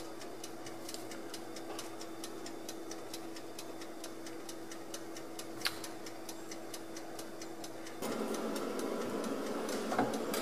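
Steady rapid mechanical ticking, about four ticks a second, like a clock, over a faint steady hum. A single knock near the end.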